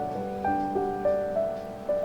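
Soft background piano music, a gentle melody of sustained notes.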